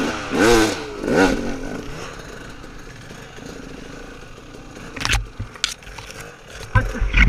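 Off-road dirt bike engine revved hard twice in quick succession, the pitch climbing and dropping each time, then running at lower throttle. A few heavy thumps and clatter come about five and seven seconds in.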